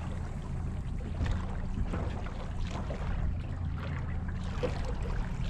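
Small boat's motor running at low speed: a steady low hum, with a light wash of water and wind noise over it.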